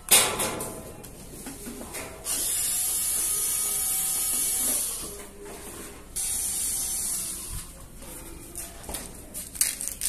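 A cordless drill-driver runs in two bursts, one of about two and a half seconds and a shorter one about four seconds later, backing screws out of a washing machine's sheet-metal back panel. A sharp knock comes right at the start.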